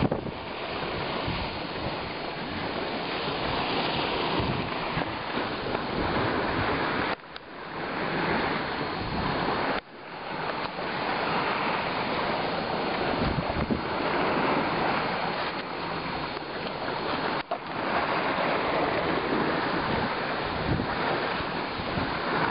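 Steady rushing noise, like wind over the microphone, that cuts out sharply for a moment about a third of the way in, again shortly after, and once more near the end.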